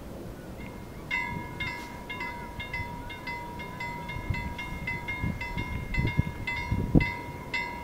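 Railway level-crossing warning bell that starts about a second in and rings steadily, about three dings a second, signalling that a train is approaching. Low wind rumble on the microphone sits underneath.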